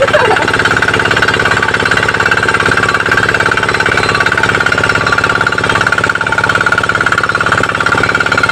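Diesel engine driving a tube-well water pump, running steadily with a fast, even knocking beat and a steady high tone over it.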